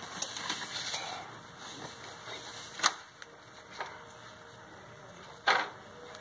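Plastic dolls and dollhouse pieces handled by hand: scattered light taps and knocks, with two sharper knocks, one about three seconds in and one near the end.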